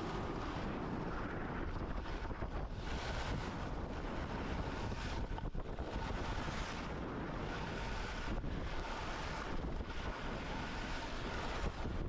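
Wind rushing over the microphone as the camera moves at speed down a groomed ski run, with the steady hiss of skis sliding over the corduroy snow.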